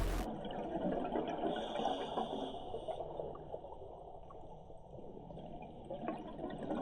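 Underwater water noise picked up by a dive camera: a faint gurgling, crackling hiss, louder in the first few seconds and dipping near the middle.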